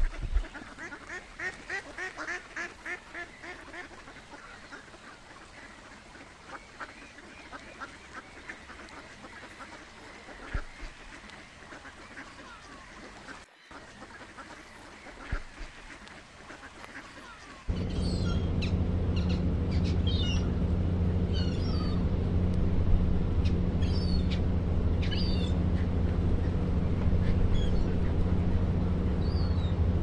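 Ducks quacking in a quick series of calls that thins out after a few seconds. Just past halfway, a loud steady low rumble takes over, with scattered short high bird chirps above it.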